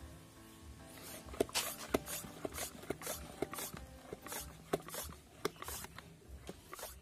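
Plunger of a hand-pump garden pressure sprayer being worked up and down to pressurise the bottle: a run of quick strokes, about two a second, each a short hiss with a click, starting about a second in.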